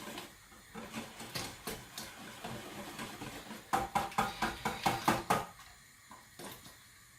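A wire whisk clinking against a mixing bowl, beating brandy into the egg mixture for advocaat. There are scattered taps at first, then a quick run of strokes at about five a second past the middle, then only a few faint taps near the end.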